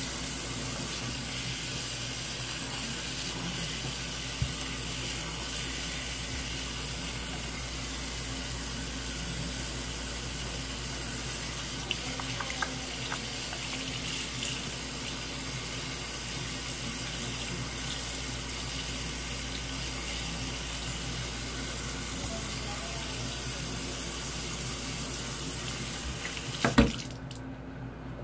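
Bathroom sink tap running steadily while soapy hands are washed under it. The water stops with a sharp knock near the end.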